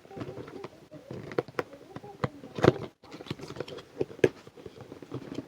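Cardboard box being opened and its contents handled: a run of rustles, taps and knocks, the loudest about two and a half seconds in and again near four seconds.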